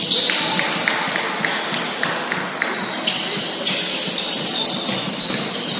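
Basketball game on a hardwood gym floor: a basketball bouncing and sneakers squeaking in short high squeaks as players move.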